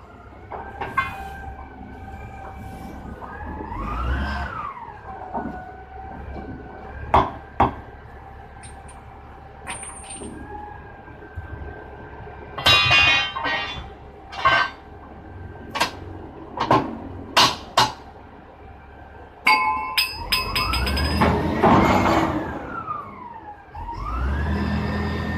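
Scattered metal clanks and strikes, some leaving a brief ringing, with a whining tone that rises and falls in pitch several times.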